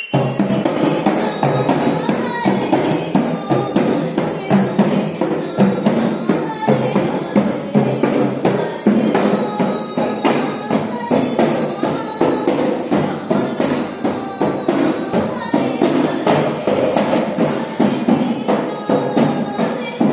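A woman singing a devotional song while playing a dholak, a two-headed barrel drum, in a steady rhythm.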